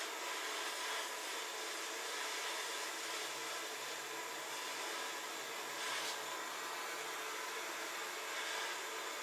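Hand-held gas torch burning with a steady hiss as it heats copper pipe joints for sweat-soldering.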